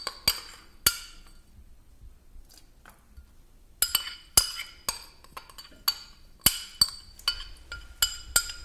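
Metal spoon clinking against a small glass bowl while scooping soft cocoa butter out of it: a few clinks at the start, a pause of about three seconds, then a quicker run of clinks.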